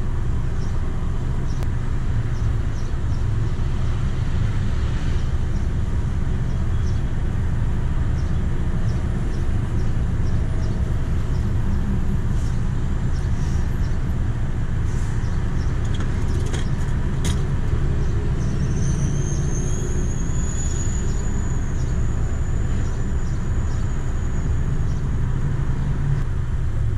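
A car engine idling close by, a steady low rumble.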